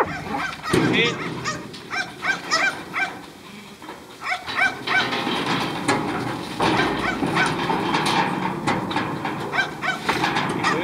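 Kelpie barking in quick, short, repeated yaps while working sheep in the yards. A broad rattling, shuffling noise joins about six and a half seconds in.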